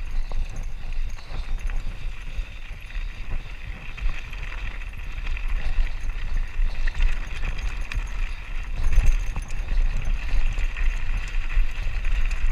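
Mountain bike rolling over a rocky dirt trail: knobby tyres crunching over loose stones and the bike rattling with a steady stream of small knocks. A heavy, uneven rumble of wind and jolts runs under it on the bike-mounted camera's microphone.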